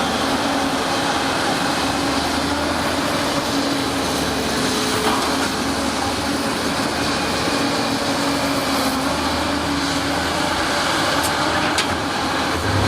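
Diesel engine of a heavy earthmoving machine running steadily under work, a constant low drone with a steady pitch.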